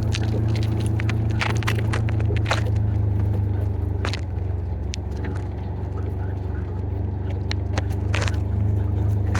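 Ranger utility vehicle's engine running steadily as it rides along, a constant low drone with scattered clicks and rattles on top, busiest about two seconds in and again near the end.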